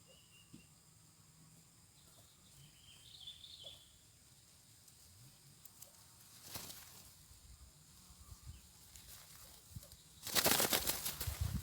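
Quiet outdoor background with a faint high bird chirp about three seconds in. Near the end a sudden loud flurry of wingbeats starts: a spotted dove flapping hard.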